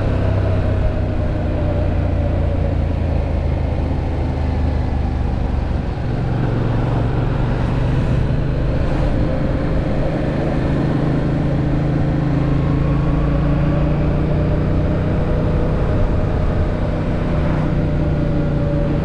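Yamaha MT-07's parallel-twin engine heard from on board while riding, over the rush of the ride. The engine note changes about six seconds in, then climbs slowly as the bike pulls.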